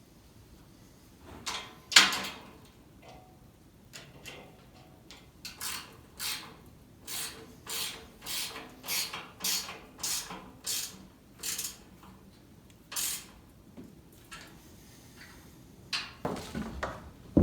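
A sharp knock about two seconds in, then a run of short rubbing or scraping strokes, roughly two a second, that stop about thirteen seconds in.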